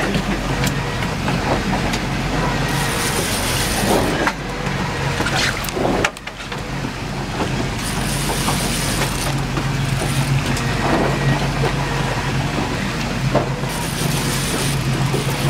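Fishing boat's engine running steadily at trolling speed, a low even hum, under the rush of wind and the lake's swells.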